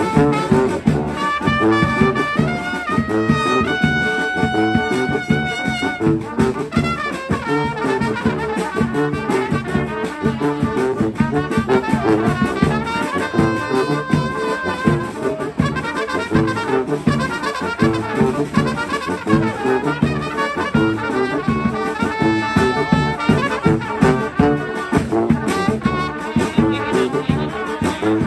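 A street band's horns playing live over a steady, even beat.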